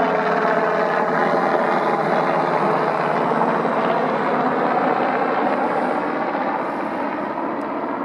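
Aircraft engine droning overhead, a steady pitched drone whose tones slowly bend as it passes, easing off slightly after about six seconds.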